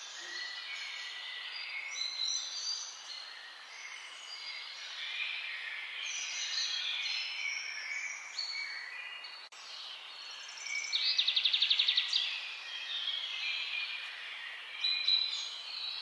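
Many songbirds singing at once: overlapping short whistles and chirps, with one loud, fast trill lasting about a second, around eleven seconds in.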